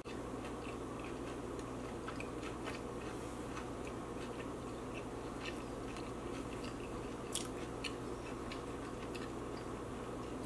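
Close-miked chewing of a cream-cheese bagel with Hot Cheetos: scattered crunches, the clearest about seven seconds in, over a steady low hum.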